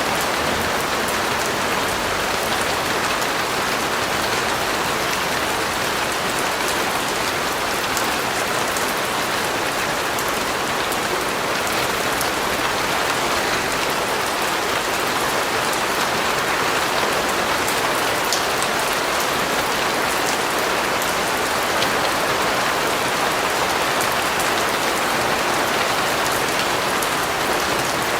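Steady rain falling, an even hiss with scattered small drop ticks that holds at one level throughout.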